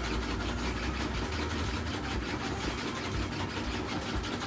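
Samsung WA48H7400AW/A2 top-load washer spinning at about 1,000 rpm on its spin cycle, a steady whirring hum. It still makes some noise but no longer shakes badly, now that it is steadied with foam noodle pieces.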